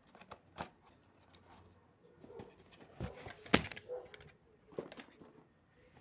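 Irregular short clicks and light knocks, the loudest a sharp knock a little past halfway through.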